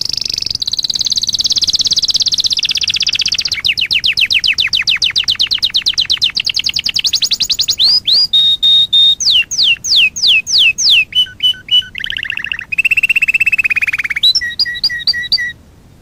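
Domestic canary singing a long, varied song: a sustained high trill, then a fast run of rapid falling notes, then slower falling whistles. About twelve seconds in comes a lower buzzy roll, and the song closes with short repeated notes.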